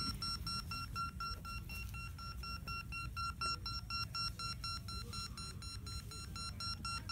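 Electronic beep baseball beeping steadily as the pitcher holds it before the pitch: a rapid, even train of short high beeps, about five a second.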